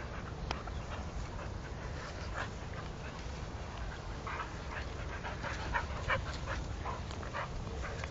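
Dogs fighting: panting and a scattered string of short, sharp dog sounds over a steady low rumble, a few of them louder about six seconds in.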